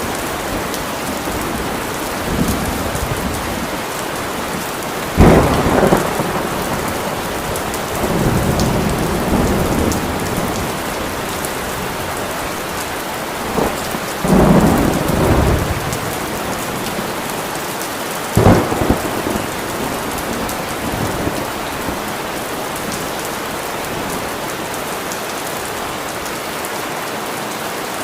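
Steady rain falling, with thunder: a sharp clap about five seconds in, another about two-thirds of the way through, and low rolling rumbles between them.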